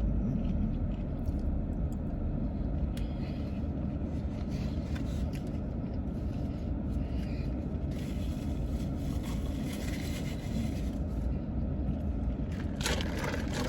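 Steady low rumble of a car heard from inside the cabin, with a short louder noise near the end.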